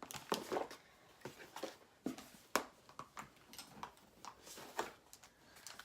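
Scattered light taps, clicks and rustles of a cardboard subscription box and its packaging being handled.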